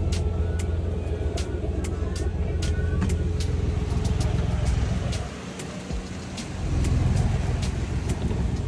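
A boat's engine running steadily under way, a low drone with wind and water rushing past and scattered light ticks. It drops away for about a second a little past halfway, then comes back.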